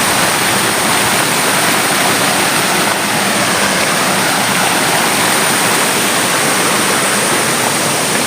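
Waterfall water rushing, a steady loud wash of noise with no breaks.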